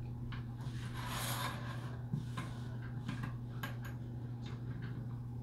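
Hands smoothing and sliding layers of quilted fabric across a wooden tabletop, a soft rubbing rustle, with a few light clicks about three and a half seconds in. A steady low hum runs underneath.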